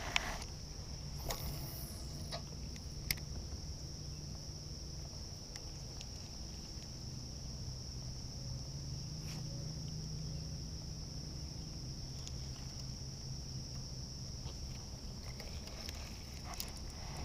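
Steady, high-pitched chorus of insects such as crickets, one unbroken tone, with a few faint clicks in the first few seconds.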